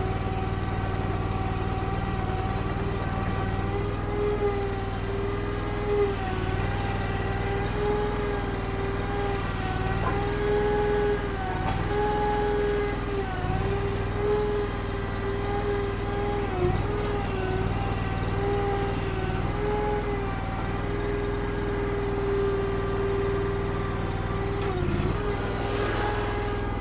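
Honda gas engine of a Derette DRT450 mini skid steer running steadily. Its note dips briefly every few seconds as the machine maneuvers, and there are a few short knocks.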